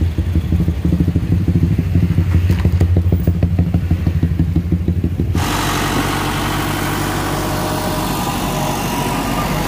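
An engine idling with a deep, even throb. About five seconds in, an abrupt cut brings a steadier, noisier machine sound, the engine of a road roller running.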